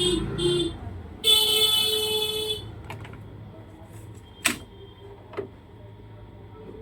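Two vehicle horn honks: a short one, then a slightly higher one lasting over a second. A few sharp clicks follow, one loud.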